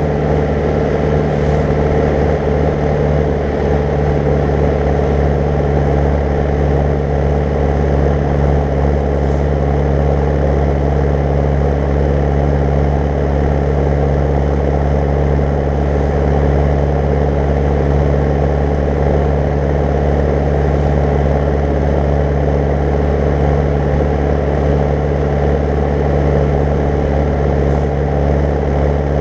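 Zetor 10145 tractor's four-cylinder diesel engine running steadily at road speed while pulling a loaded slurry tanker, an even drone with no change in revs.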